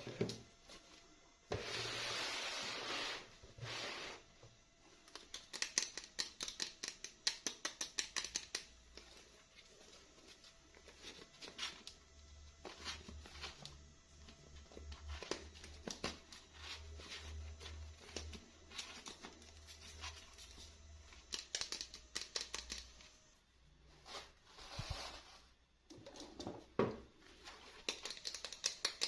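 Toy packaging being opened by hand: a tearing rustle about two seconds in, then bursts of rapid small clicks and crackles as the packaging is worked open.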